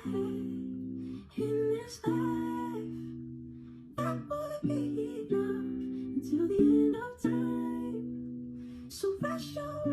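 Background music: plucked guitar chords ringing and decaying, with a singing voice carrying a melody over them.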